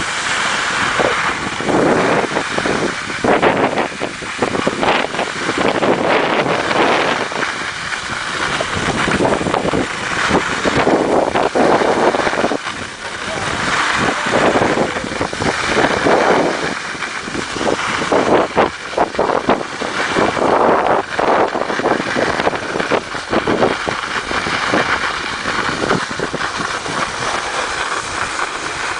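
Wind buffeting the microphone and skis scraping and hissing over hard-packed snow during a downhill run, surging and easing with each turn.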